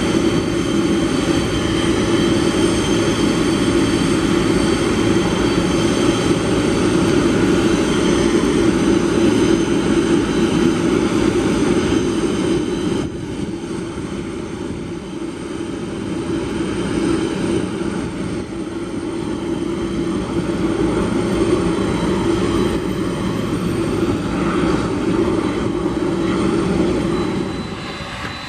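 Boeing 747-400 freighter's four turbofan engines running at taxi power: a steady jet rumble with several held high-pitched whines. It drops somewhat in loudness about halfway through.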